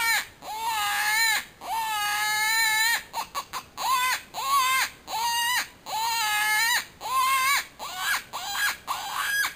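Mouth-blown predator call sounding a series of wavering, crying wails: long drawn-out cries with short quick notes between them, then shorter rising squeals near the end. It is a coyote-calling sequence imitating a prey animal's distress cry.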